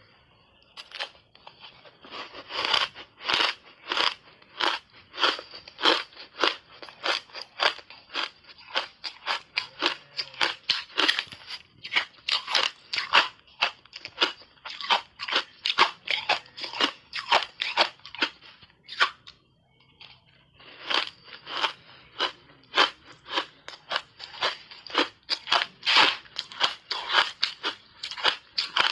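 Ice chunks coated in matcha powder being crunched and chewed in big bites: a steady run of sharp crunches, two or three a second. They start about two seconds in, with a short pause about two-thirds of the way through.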